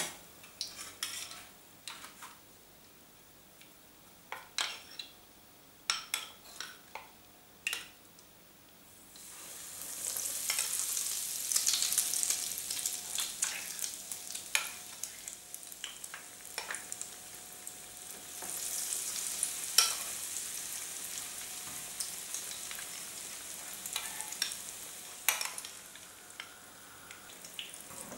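Egg-dipped kefta patties dropped into hot oil in a frying pan and sizzling, the sizzle starting about nine seconds in and swelling again as more patties go in. Before that, a few sharp clicks of utensils on the bowl and pan.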